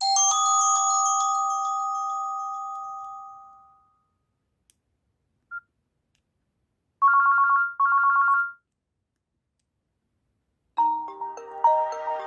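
Nokia C5-00 original ringtones and alert tones played one after another: a two-note chime that fades away over about four seconds, a short blip, two short trilling rings, then a melodic ringtone starting near the end.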